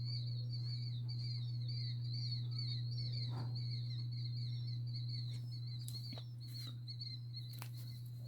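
Unidentified animal calls: rapid high-pitched chirps repeating several times a second, overlapping as if from more than one caller, over a steady low hum. A few sharp clicks come near the end.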